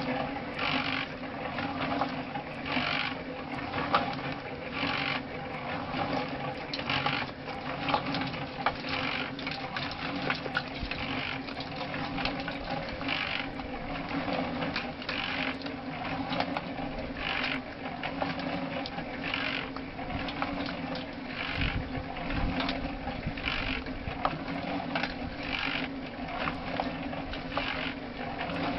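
Small portable cement mixer running with a steady hum and constant ticking of its drive. The cob mix tumbling in the turning drum gives a scraping swish about every two seconds.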